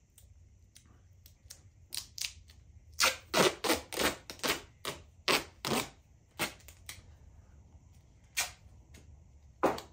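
Duct tape being pulled off the roll in short jerky rips: a few at first, a quick loud run of them in the middle, then single rips near the end.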